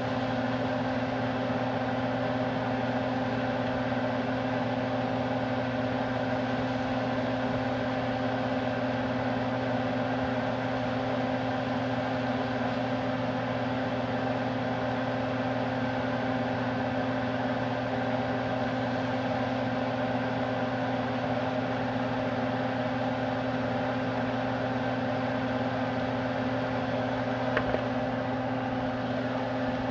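Steady mechanical hum, unchanging throughout, with a single short knock near the end.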